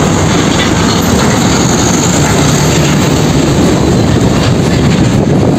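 Loud, steady rush of a heavy diesel fuel tanker truck's engine and tyres on the road as it drives by close.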